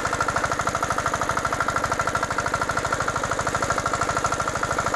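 Engine of a multi-attachment rotavator-cultivator machine running steadily, a rapid, even chugging with a steady high whine over it, running on its own while only being held.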